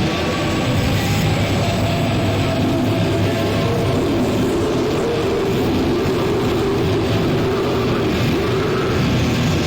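Dense, steady wall of distorted industrial noise music, a power-electronics drone with heavy low rumble and held droning tones.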